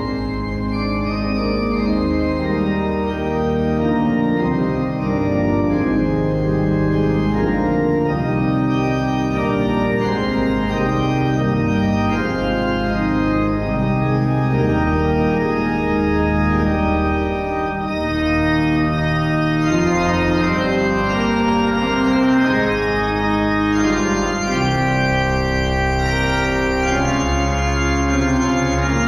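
Organ playing a hymn tune in held chords that change every second or two.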